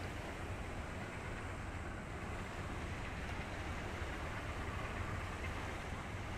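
Steady low rumble of ships under way, with an even wash of water and wind noise over it.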